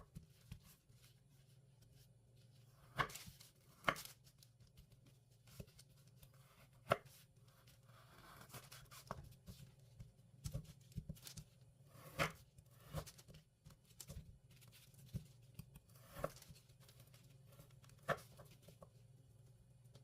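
Food preparation: irregular, sparse knocks and clicks of a knife and utensils on a cutting board, over a faint steady low hum.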